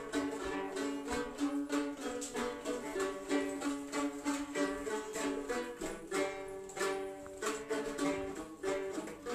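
Plucked string instrument playing a quick folk melody, the notes changing rapidly.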